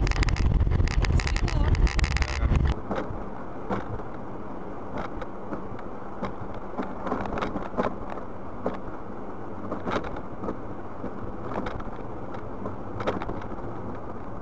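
A loud rushing noise that cuts off abruptly a little under three seconds in. It gives way to the steady low drone of a car driving on a snowy road, heard from a dash cam inside the cabin, with scattered small knocks and clicks.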